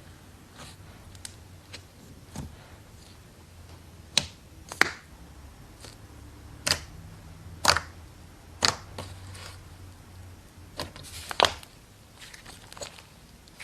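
Slime being pressed and squished, making irregular sharp pops and clicks, a few of them much louder than the rest.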